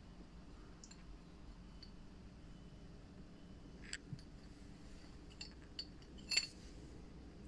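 A few light clicks and metallic clinks as the metal bowl of a Yanmar marine diesel's fine fuel filter is unscrewed and lifted off, the loudest clink about six seconds in.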